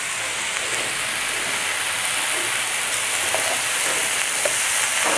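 Chicken breast fillets frying in a little oil in a nonstick pan: a steady sizzling hiss with a few small pops, growing slightly louder.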